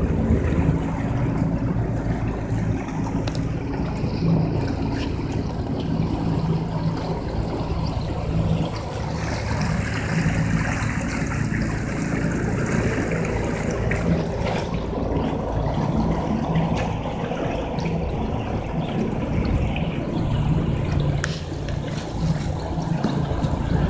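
A small fishing boat's outboard motor running at a steady speed, with water rushing along the hull and wind on the microphone.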